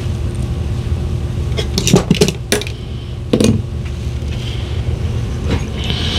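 Small metal hand tools clinking as they are picked up and handled: a few light metallic clicks about two seconds in and another about three and a half seconds in, over a steady low hum.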